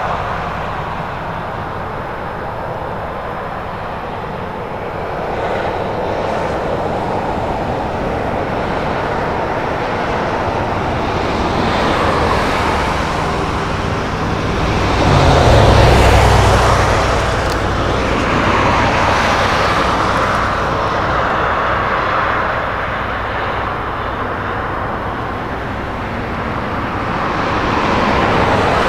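Highway traffic passing: vehicles swelling by one after another over a steady wash of noise, the loudest about halfway through with a deep rumble.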